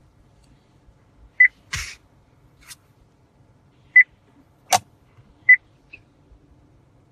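Car infotainment touchscreen giving short high confirmation beeps as it is tapped: three beeps a second or two apart, with a few clicks and taps in between.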